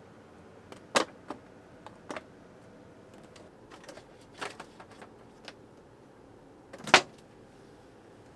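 Handling noises from unboxing a large toy: a string of separate clicks and knocks, the sharpest about a second in and near the end.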